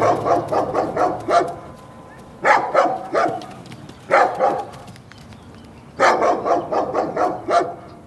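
German Shepherd barking in four quick bursts of rapid barks, the first and last bursts the longest.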